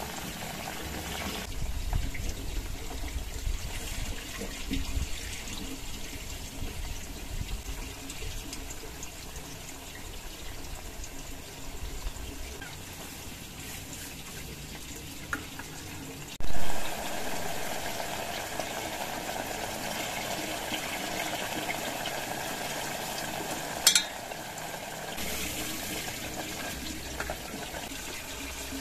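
A pot of water with chicken feet boiling on a portable gas stove, a steady bubbling. About halfway through there is a brief loud burst, and near the end a single sharp click.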